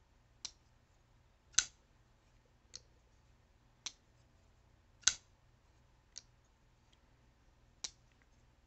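Kubey folding knife being worked by hand, its blade and lock giving seven sharp clicks about a second apart, two of them louder than the rest.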